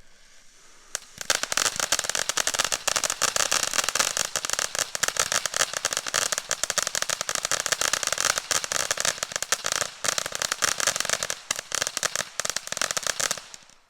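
Hot sauce novelty firework going off: a faint fuse hiss, then about a second in a dense, rapid crackling that runs for some twelve seconds and cuts off suddenly near the end.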